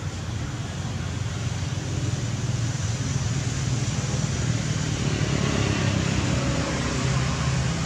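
Steady low rumble with a hiss over it, growing a little louder through the middle, like traffic or an engine running.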